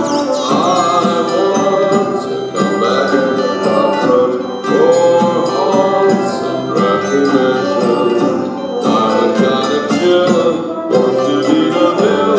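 Live band music with a man singing into the microphone over a bright, jingling accompaniment.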